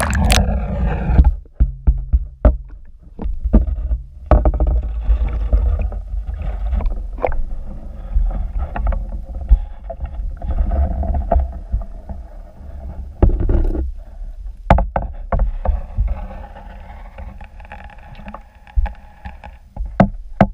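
Underwater camera going down through an ice-fishing hole: a splashy burst as it goes under, then water sloshing against the housing and a muffled low rumble, with frequent knocks and clicks from the housing and cable being handled.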